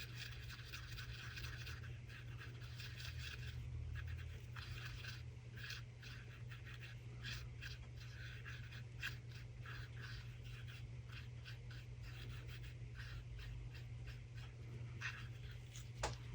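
Short stubby brush scrubbing chameleon flakes into a silicone mould, a run of quick, uneven scratchy strokes over a steady low hum, with a sharp click near the end.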